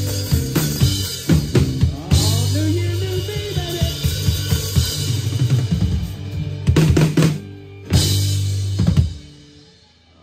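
Live rock-country band playing the closing bars of a song, the drum kit up close with kick, snare and cymbals over electric guitar and bass. A run of drum hits near the end leads into a final crash that rings out and dies away shortly before the end.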